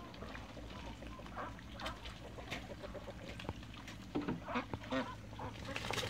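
Domestic ducks and geese calling: scattered short quacks and honks, with the loudest cluster of calls about four to five seconds in.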